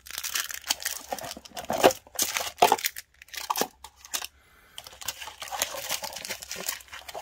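Crinkling and rustling of plastic wrapping as cards and foil booster packs are handled and pulled from a cardboard box, in irregular spurts.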